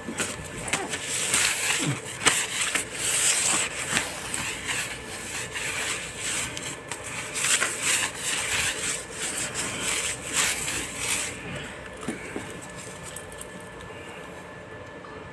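A cloth rubbed back and forth over a hard, smooth floor in quick, uneven scrubbing strokes that stop about eleven seconds in.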